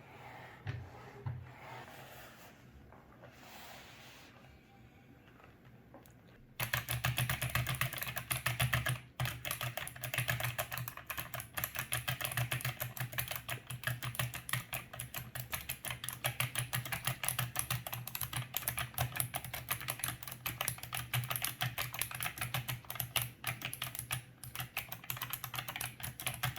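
Razer Ornata V2 keyboard's hybrid mecha-membrane switches being typed on fast, a dense run of clicky keystrokes. The typing starts about six seconds in, after a quieter stretch with a few faint clicks.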